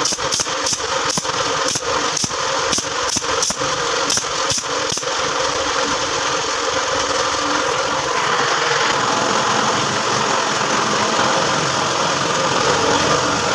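Pneumatic nail gun firing about a dozen nails in quick succession into plywood, roughly two shots a second, stopping about five seconds in. A motor runs steadily underneath throughout.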